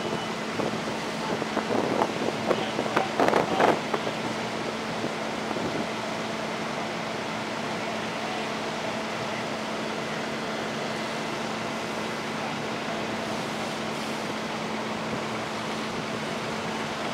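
Fire truck's engine running steadily at the scene, a constant low hum over an even noise. A few short, louder sounds break in during the first four seconds.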